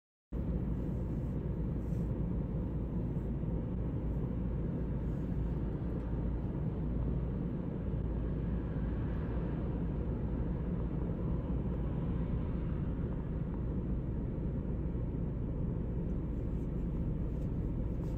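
Steady low rumble of city road traffic, with no single vehicle standing out. It starts abruptly just after the start, following a brief silence.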